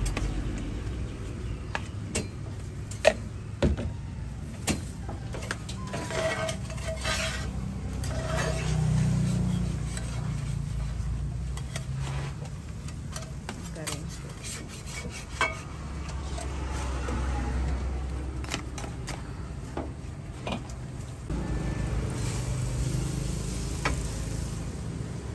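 Metal spatula and spoon clicking and scraping against cast-iron and brass apam balik griddle pans, in scattered knocks and taps, over a steady low rumble.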